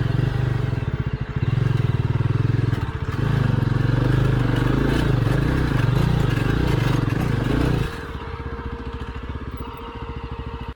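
Single-cylinder adventure motorcycle engine running with a steady, loud pulse just after being started on a steep off-road climb. It drops to a lower, quieter run about eight seconds in.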